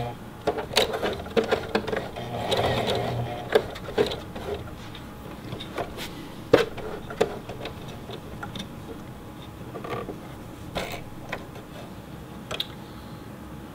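Singer Heavy Duty sewing machine stitching in short bursts for about the first three seconds, then stopping. After that come scattered clicks and knocks of fabric and thread being handled at the machine.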